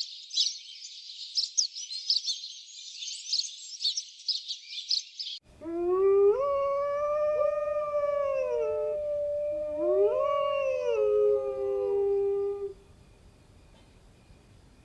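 Dense high bird chirping that cuts off abruptly about five seconds in, followed by a dog howling: two long howls that each rise and fall in pitch.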